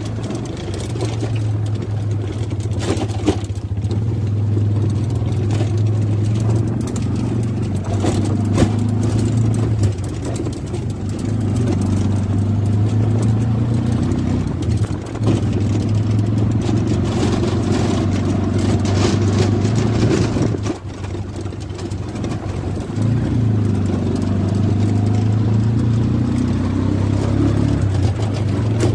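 Engine of the small motor vehicle being ridden, heard from on board, running steadily under way. Its note eases off and picks up again a few times, most clearly about two-thirds of the way through.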